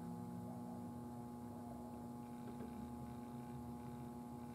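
A faint, steady electrical hum, several even tones held without change.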